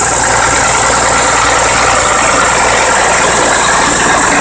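M929A2 5-ton truck's Cummins 6CTA8.3 turbo-diesel running steadily at high idle, being warmed up to operating temperature to pressure-test a freshly regasketed radiator.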